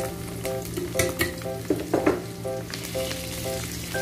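Chopped onions sizzling in hot cooking oil in an aluminium wok as they start to sauté. A metal ladle stirs them, with sharp scrapes and clinks against the pan.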